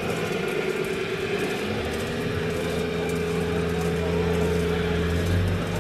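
Steady motor hum of a radio-controlled scale Volvo excavator working, a few held tones that grow fuller about two seconds in and drop away near the end.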